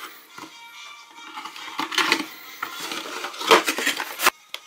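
Cardboard box and wrapped surprise eggs being handled and lifted out, rustling and clattering loudest about two seconds in and again near the end, over quiet background music.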